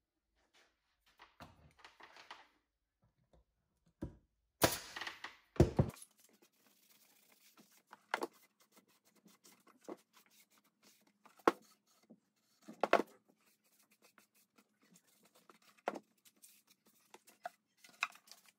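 Pneumatic nail gun firing twice, about a second apart, each shot a sharp crack with a hiss of air, driving nails into a plywood drawer. Then scattered knocks and rubbing as the wooden drawer is wiped down and handled on the workbench.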